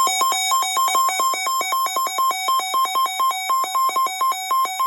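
Rapid electronic beeping that switches back and forth between two buzzy pitches, several short tones a second in an uneven pattern.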